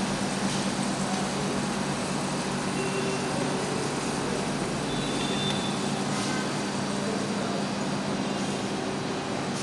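Steady background noise with a constant low hum and no speech.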